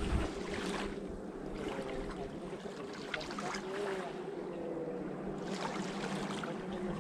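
Small waves lapping and washing up onto a sandy shore, swelling and fading every second or two, over a steady low hum.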